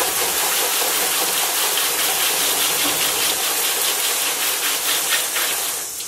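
Garden hose spray nozzle jetting water into a burnt-out microwave oven, a steady hiss and splash of water hitting the hot, steaming interior as a lithium battery fire is doused. The spray eases off near the end.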